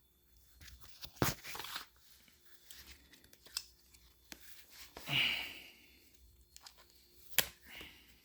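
Cardboard and plastic packaging of a keyboard box being handled: sharp knocks about a second in and again near the end, with a short tearing rustle about five seconds in.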